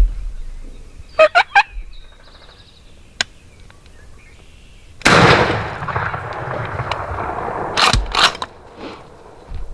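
Wild turkey gobbling and calling up close. There are three quick calls a little over a second in, then a long, loud rattling stretch starting about halfway through, and two sharp bursts near the end.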